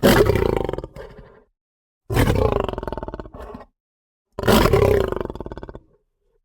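Lion roaring: three separate calls, each starting loud and fading over about a second and a half, with a rough pulsing texture and dead silence between them.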